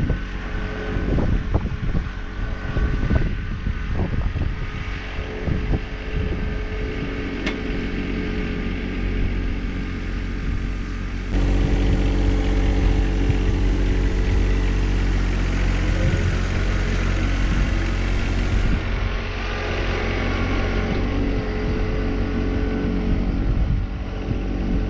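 Engine of the machine dragging a box blade over loose soil, running steadily under load to cover freshly sown seed. It gets louder about eleven seconds in and stays there.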